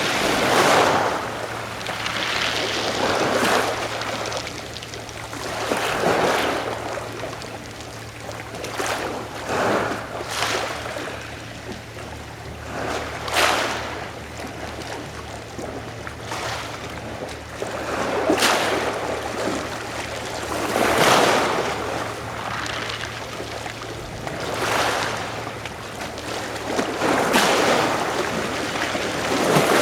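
Adriatic Sea waves washing against the shore, swelling and falling every few seconds, with sharper splashes about 13 and 18 seconds in. A faint steady low hum runs underneath.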